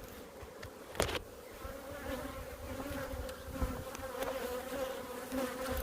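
Honeybees buzzing around an opened hive, a steady hum, with one sharp click about a second in.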